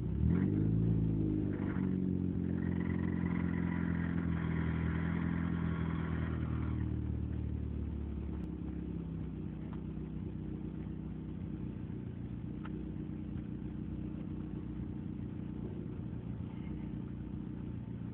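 Car engine revving up in the first second, then running at a steady fast idle that drops to a lower idle about seven seconds in.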